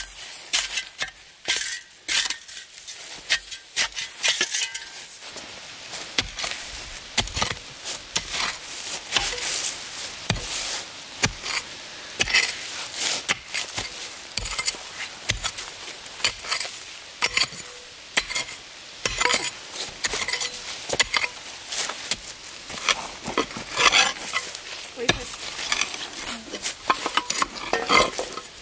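Shovel and mattock digging around a buried rock, scraping and chopping through soil and dry leaves. A busy, irregular run of crunches and scrapes with sharp clinks.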